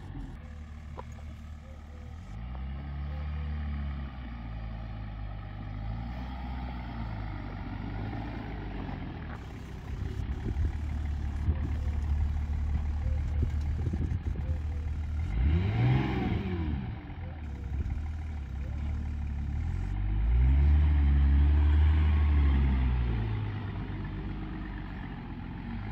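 Range Rover P38 2.5 DSE's 2.5-litre six-cylinder turbodiesel on its stock exhaust, running and being revved several times. There is a quick blip up and back down about two-thirds of the way through, and a louder, longer held rev near the end.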